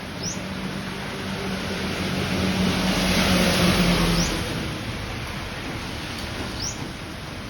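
A motor vehicle passes: its engine hum swells to a peak about three to four seconds in, then fades. Under it runs a steady rain hiss, and short, high, falling bird chirps come three times, every two seconds or so.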